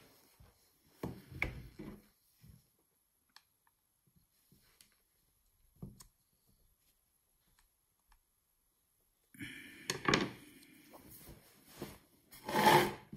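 Screwdriver prying and scraping at the seam of a plastic iPhone charger case, with scattered small knocks and clicks. Near the end there is a busier stretch of scraping with two louder knocks.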